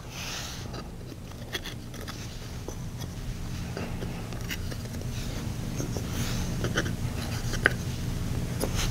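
Faint clicks and taps of wooden puzzle pieces being lifted from a frog life-cycle puzzle board and set down on a cloth mat, one sharper click near the end, over a steady low hum.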